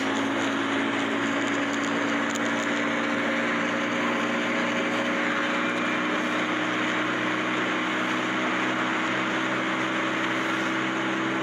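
Simulated car engine sound from a phone speedometer app: a steady engine drone whose pitch creeps slowly upward as the simulated speed rises toward 140 km/h.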